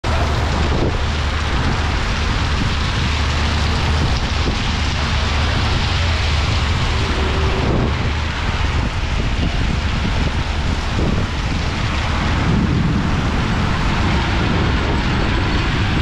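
Heavy rain pouring steadily onto a wet city street and roofs, with a deep rumble underneath.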